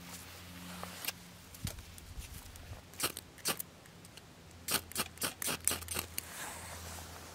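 A fire starter struck against its striker to throw sparks onto dry juniper-bark tinder. It makes short, sharp scrapes: two about three seconds in, then a quick run of about seven. Before that, dry twigs snap faintly as they are set in place.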